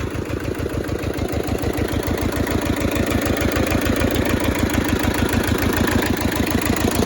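Small Toyosha S88 diesel engine of a Hinomoto E150D compact tractor idling steadily, with an even, regular firing beat.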